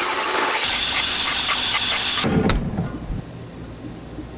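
Milwaukee abrasive chop saw cutting through a pattern-welded damascus steel billet: a loud, harsh grinding hiss. It cuts off suddenly a little over two seconds in, followed by a low thump and quieter sounds.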